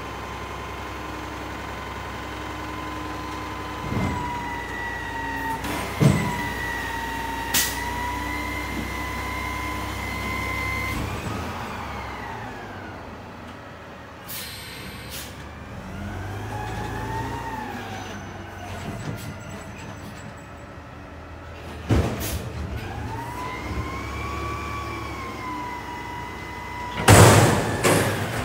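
Front-loader garbage truck, a CNG Peterbilt 520 with a McNeilus Contender body, running with a high mechanical whine that holds steady, then rises and falls several times as the engine revs. A few sharp knocks and hisses come through it, and a loud clatter near the end as the front forks lift a dumpster over the cab.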